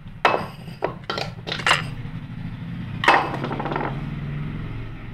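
Steel mixer-grinder jar and other kitchenware being set down and handled on a kitchen counter: a quick run of knocks and clinks in the first two seconds, then a louder knock about three seconds in, over a steady low hum.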